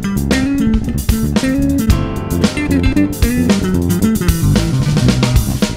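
Five-string Fodera electric bass playing a groove with a band: bass notes up front, with keyboard and drum kit behind.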